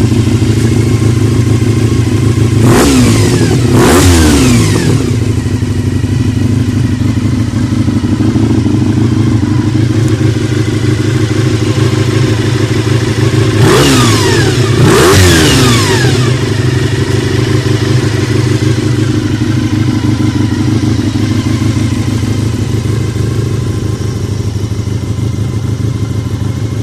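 Honda VFR400R NC30's 400 cc V4 engine idling, blipped twice in quick succession a few seconds in and twice again about halfway through, each time dropping straight back to idle.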